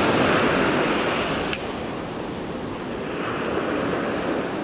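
Surf breaking and washing up a sandy beach, a steady rushing wash that is louder for the first second and a half, then eases. A single sharp click sounds about a second and a half in.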